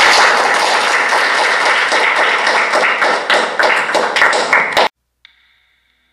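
A small group of children clapping, a dense patter of hand claps that cuts off abruptly about five seconds in. A faint musical note sounds just after.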